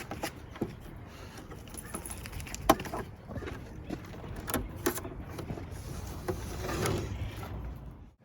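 Light clattering and jingling of loose objects over a low steady rumble, with one sharp knock about two and a half seconds in.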